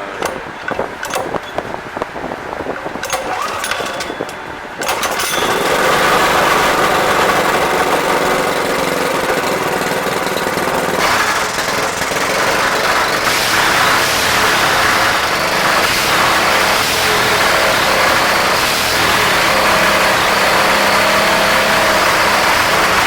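Honda GX200 single-cylinder overhead-valve small engine, freshly rebuilt with its carburetor jet drilled out, sputtering unevenly for a few seconds, then catching about five seconds in and running loudly and steadily.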